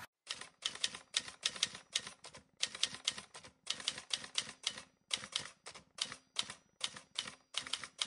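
Typewriter keys clacking in quick, uneven runs of sharp strikes, several a second, with short pauses between the runs.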